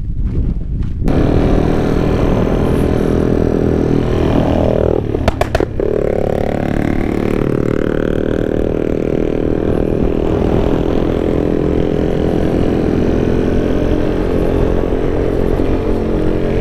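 Footsteps on dirt for about a second, then a small single-cylinder Italika FT street motorcycle running on the road from the rider's seat. Its engine note drops and climbs back about five seconds in, with a couple of sharp clicks at the low point.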